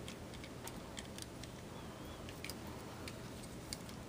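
Faint, scattered clicks and taps of the plastic parts of a Takara Tomy Masterpiece MP-19 Smokescreen Transformers figure as its arm is folded into place by hand.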